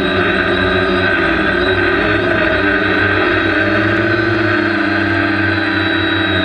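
Multirotor drone's electric motors and propellers heard close up from the onboard camera: a loud, steady multi-tone whine, its pitch shifting slightly around the middle.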